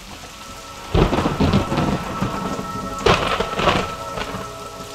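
Steady rain with two cracks of thunder, one about a second in and another about three seconds in, each rumbling away.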